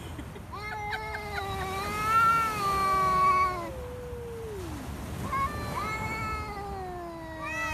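Male cats yowling at each other in a standoff: long, drawn-out wavering wails. The first starts about half a second in and lasts about three seconds, then slides down in pitch, and another starts about five seconds in. This is the territorial caterwauling of tomcats squaring up over a female.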